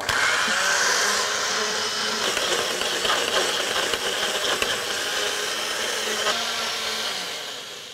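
Electric blender running steadily, puréeing a caramelized pepper mixture, then winding down near the end.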